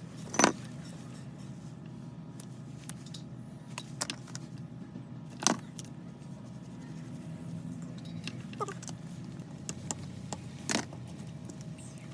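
Scattered sharp metallic clinks and knocks, about five of them and the loudest near the start, as tools and small parts are handled over a steady low hum.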